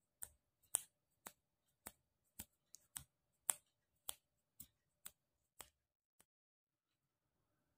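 A run of sharp, short clicks, about two a second, that stop about six seconds in.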